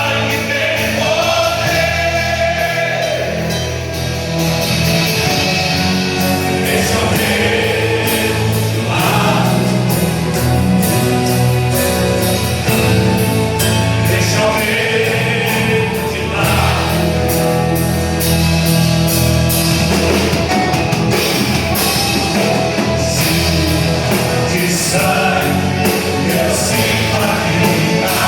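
Band playing a loud gospel rock song, with voices singing over a steady drum beat.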